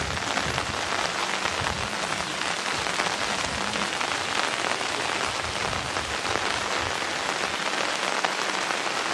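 Steady rain falling, an even hiss of dense patter that holds at the same level throughout.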